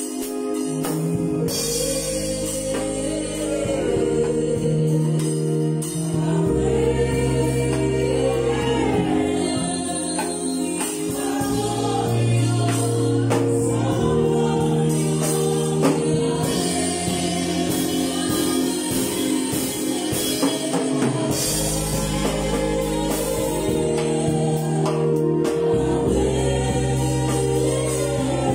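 Live gospel worship music: singing over held keyboard chords that change every few seconds, with a drum kit and cymbals played along.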